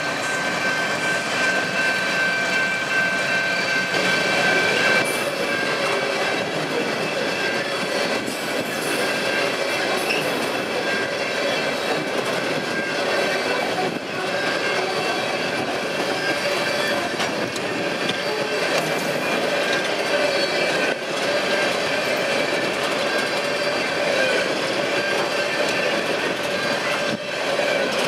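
Empty coal train passing close by. The last of its diesel locomotives, an SD70MAC, goes by in the first few seconds, then empty coal gondolas roll past steadily with a clatter of wheels on rail and a thin wheel squeal.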